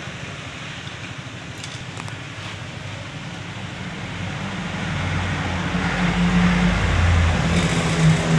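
A vehicle's engine growing louder from about halfway through, over a steady background hum, with a few faint clicks about two seconds in.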